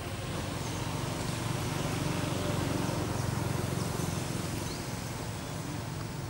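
Low steady rumble of passing motor traffic, swelling over a couple of seconds in the middle and easing off again.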